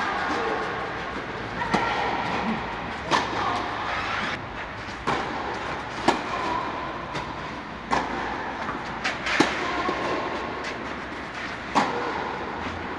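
Tennis ball struck back and forth by rackets in a rally, a sharp hit every second or two that echoes under the fabric air dome, over a steady hum.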